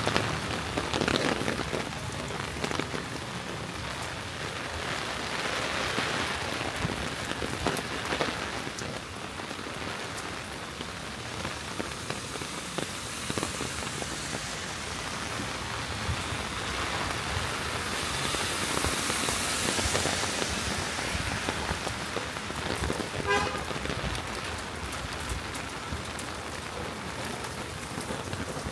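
Steady rain falling on a city street. Past the middle there is a swell of hiss like a vehicle passing on the wet road, and near the end a brief pitched sound.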